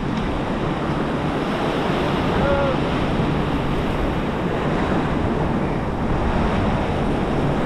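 Ocean surf washing against the inlet jetty, with wind buffeting the microphone: a steady, unbroken rush.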